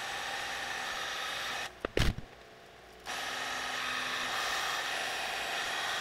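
Wagner heat gun running, a steady blowing hiss as it heats shrink sleeving on a wiring harness. It cuts out for about a second and a half, with a couple of sharp knocks about two seconds in, then runs again.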